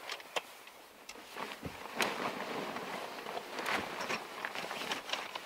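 Scattered knocks, clicks and rustling as a telescoping aluminium ladder is set against a folding rooftop tent and climbed, and the tent's fabric is handled.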